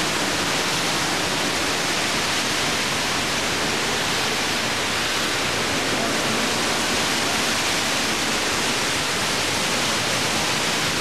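Hurricane-force wind and driving rain, a loud, steady, unbroken rush of noise.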